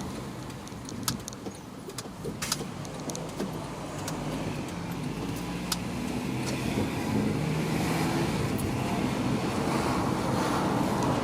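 Inside a 2008 Honda CR-V on the move: engine and road noise that grows louder and rises in pitch as the car picks up speed, with a few light clicks near the start. No grinding is heard from the rear wheels, which have just had their worn brake pads replaced.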